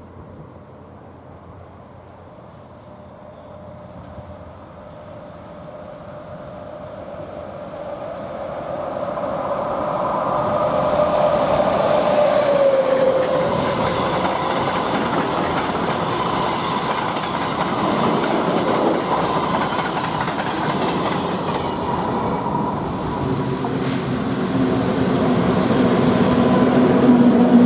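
PKP EU07 electric locomotive hauling a train through the station without stopping. It grows louder for the first ten or so seconds as it approaches, with a tone that drops in pitch as it passes, then the train's wagons keep running by on the rails.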